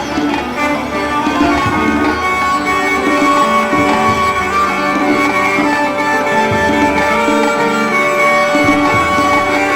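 Instrumental background music with held, droning tones.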